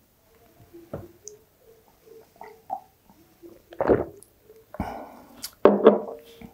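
A person drinking a soft drink from a glass: soft gulping and mouth sounds, and the glass knocked down on a wooden table about five seconds in.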